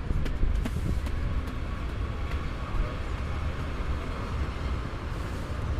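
City street traffic: a motor vehicle running close by, a steady low rumble under a haze of street noise.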